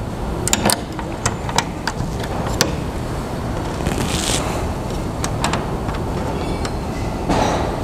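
Sharp metal clicks and taps of flange bolts and washers being handled and fitted by hand into a UTV door's window track, mostly in the first three seconds, with a brief scrape about four seconds in, over a steady low rumble.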